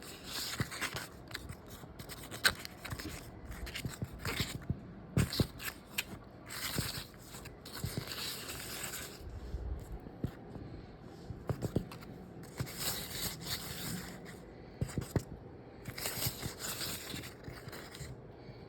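Butter being rubbed over the tops of freshly baked bread rolls in their pan: repeated soft rubbing and scraping strokes with a few light clicks and knocks.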